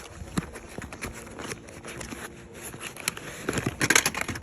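Metal tools and parts clicking and knocking against each other while a spark plug is being swapped in the engine bay, with a denser, louder run of clicks near the end.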